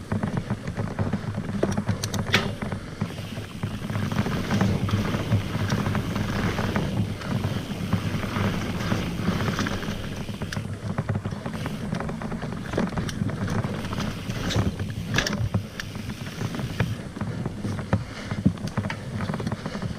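Mountain bike rolling along a dirt trail, heard from a GoPro on the rider: a steady low rumble of tyres and wind on the microphone, with scattered clicks and knocks from the bike rattling over the ground.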